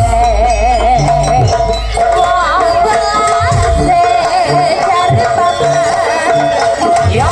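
Jaranan accompaniment music: a high wind melody that holds and wavers around one note over a pattern of hand-drum strokes from the kendang.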